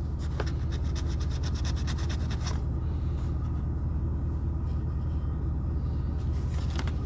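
A coin scratching the coating off a scratch-off lottery ticket in quick, rapid strokes, in two spells: over the first two and a half seconds and again near the end. A steady low rumble runs underneath.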